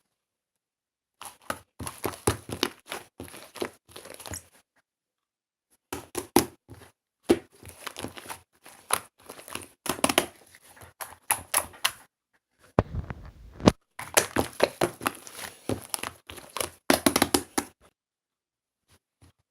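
Hands squishing, pressing and stretching slime, with dense clicky pops and crackles in several bursts of a few seconds each, separated by silent pauses. A short low muffled rumble comes about two-thirds of the way through.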